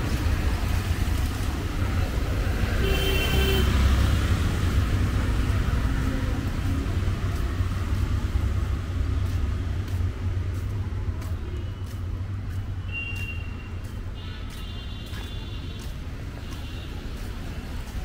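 Road traffic in a city street: a vehicle's low rumble swells to its loudest about four seconds in, then fades. Short vehicle horns sound around three seconds in and several times in the second half.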